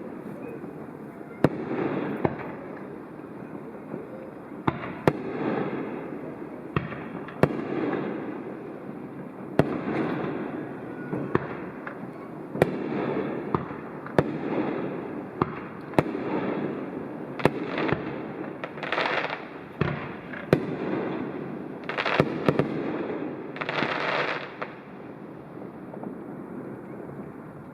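Aerial fireworks shells bursting one after another, sharp bangs every second or two, each with a rumbling tail. Twice, near the middle and later on, there is a brighter crackling hiss. It dies down over the last few seconds.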